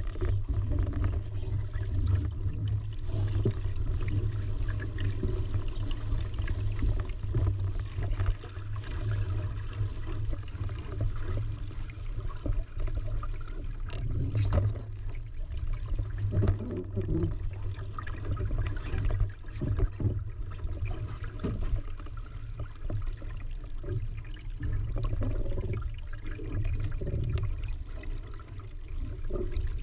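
Water splashing and gurgling along the hull of a Supernova sailing dinghy under way, over a steady low rumble of wind buffeting the microphone. A single sharp knock about halfway through.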